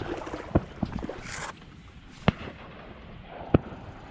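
Three sharp knocks well spaced over a couple of seconds, over light rustling and handling noise that dies down about a second and a half in.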